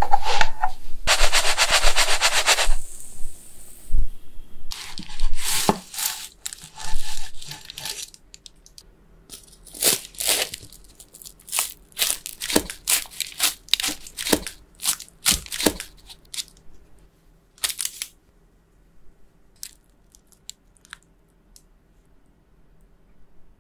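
Pan-fried cheese potato flatbread being cut with a knife: a run of sharp crisp crunches a little under a second apart as the blade goes through the browned crust, one more a little later, then only faint ticks. Before the cutting, the first few seconds hold a loud rough scraping rush as the bread is handled in the pan.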